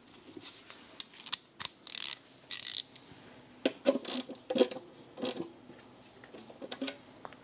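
Hand ratchet clicking in several short bursts, with knocks of the tool against the car's underbody, as a fastener under the engine is run in by hand before final torquing.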